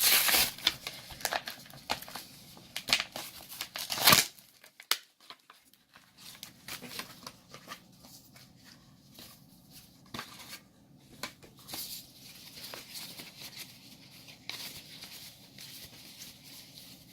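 Foil Yu-Gi-Oh booster pack wrapper being torn open and crinkled. There are a few loud rips in the first four seconds, then quieter crinkling for the rest.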